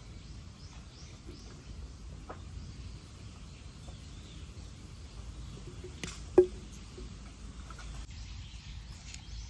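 An aluminium drink can set down on a wooden board, one sharp knock about six seconds in with a short dull ring. A faint lighter tap comes earlier.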